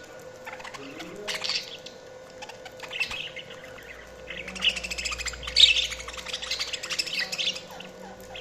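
Budgerigars chirping and chattering, with short high chirps and then a longer, louder stretch of rapid warbling chatter from about halfway through.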